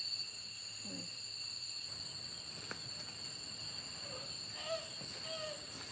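Night insects, crickets, chirring in a steady high-pitched chorus.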